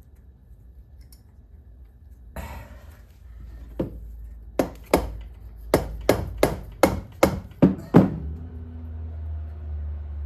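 Small soft-faced hammer tapping on a KTM 450 EXC engine's crankcase, about ten sharp blows in quick succession, to ease the case halves apart off the crankshaft. A low steady hum runs underneath near the end.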